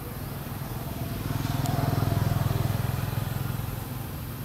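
Low engine drone of a passing motor vehicle, swelling to its loudest about two seconds in and then fading away.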